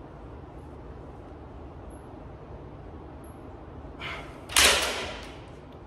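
A lifter's breathing at the end of a set on a cable machine: a short intake, then one loud, sudden, forceful exhale that fades over about half a second. Under it is a steady low hum, consistent with the gym's ceiling fans.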